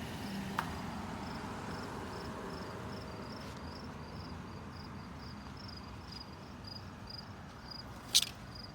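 Insects chirping in a steady rhythm, about two and a half high chirps a second, over a low background hum, with a sharp click near the end.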